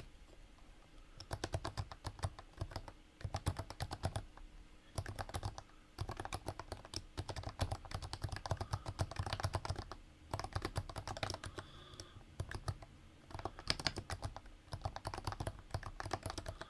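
Typing on a Leopold FC660C with 45 g Topre switches, lubed and not silenced, fitted with NovaTouch sliders and Cherry-profile keycaps. Fast runs of keystrokes start about a second in, broken by short pauses.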